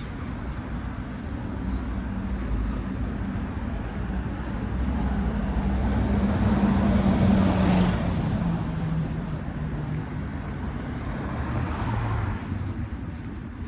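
Road traffic on a street: the engine drone and tyre noise of a passing vehicle swell and fade, loudest about halfway through, with a second, smaller pass near the end.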